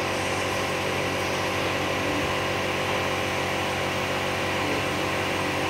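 Steady mechanical hum with a hiss over it, unchanging in pitch and level.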